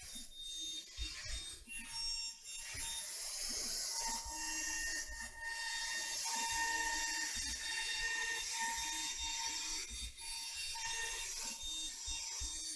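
Smartbench CNC router cutting 6 mm MDF: the spindle and router cutter give a steady high hiss with whining tones that come and go, over the dust extractor running.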